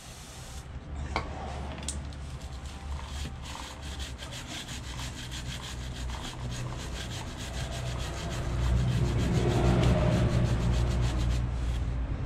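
A stiff chain brush scrubbing a KTM 890 Duke R's drive chain, wet with WD-40, in rapid repeated rasping strokes as the rear wheel turns. The scrubbing gets louder over the last few seconds.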